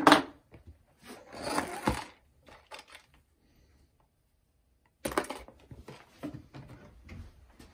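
Clear plastic bin handled on a countertop: a sharp knock at the start, then scraping and knocking as it is tilted and the gold bar slides inside, a short silent gap, and more handling noise.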